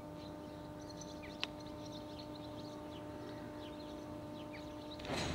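Small birds chirping and twittering over a steady faint hum, with one sharp click about a second and a half in. Just before the end, the louder noise of an arriving electric train cuts in suddenly.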